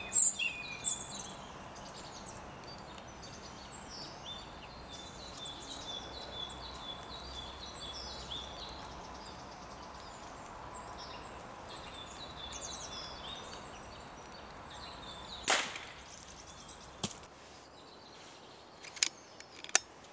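Birds calling in the background, then a single crack of a pre-charged pneumatic air rifle firing about fifteen seconds in, followed by a few sharp clicks near the end.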